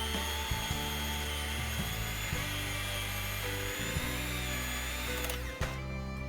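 Electric mixer motor whining steadily as it beats a thick cream cheese batter, switched off about five seconds in. Background music with a steady bass line plays throughout.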